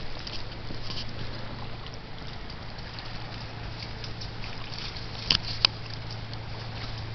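Lake water lapping and sloshing around a kayak, with two short knocks a little past five seconds in.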